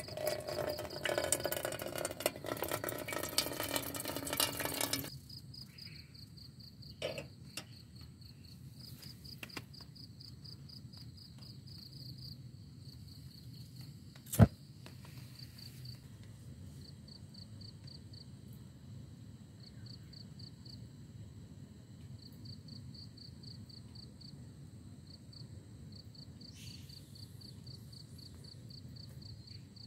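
Crickets chirping in repeated trains of rapid high-pitched pulses that stop and start. A loud rough noise fills the first five seconds, and a single sharp click, the loudest sound, comes about halfway through.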